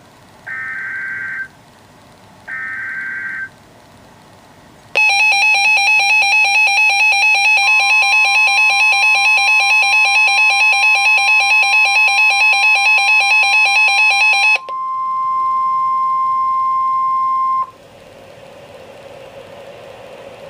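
Emergency Alert System warning on NOAA Weather Radio. It opens with the last two of three one-second bursts of the SAME header's data tones. Then a loud, rapidly pulsing Wireless Emergency Alert tone sounds from a phone speaker for about ten seconds. The radio's steady single-pitch warning alarm tone starts under it a few seconds later and carries on alone for about three seconds after the phone stops, followed by faint radio hiss.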